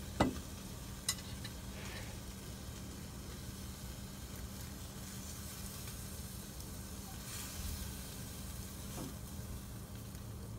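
Beef steak frying in a skillet on a Coleman portable gas stove, a steady sizzle, with a couple of sharp clicks from the tongs about a second into it.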